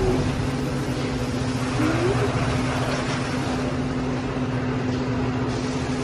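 Steady machinery hum: an even hiss with a constant low drone that does not change.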